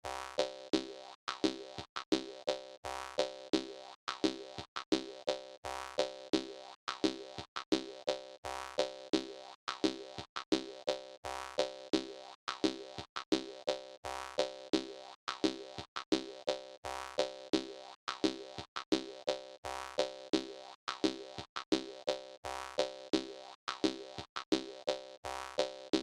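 Jaw harp music: a steady, repeating rhythm of twangy plucks.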